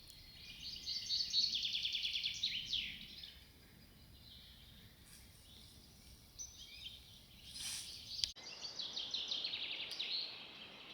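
Songbirds singing: two bursts of quick repeated high notes, each a couple of seconds long, the first ending in a falling sweep, with a short rustle between them.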